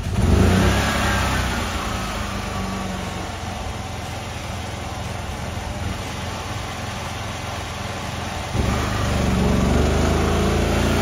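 Small petrol generator engine running: its note rises sharply right at the start, settles into a steady run, then turns suddenly louder about eight and a half seconds in.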